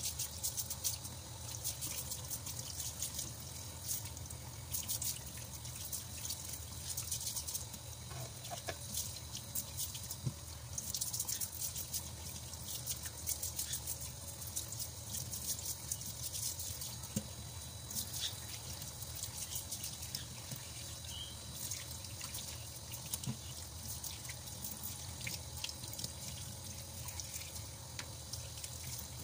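Kitchen tap running a thin stream into a stainless-steel sink, splashing and dripping over sea cucumbers being rinsed under it, with a steady hiss and a dense crackle of small splashes.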